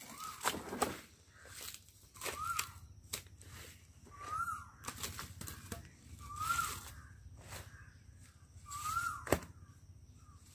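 Live hen held upside down by its legs, flapping its wings in short rustling bursts, with a short rising-and-falling call about every two seconds. A sharp knock comes near the end.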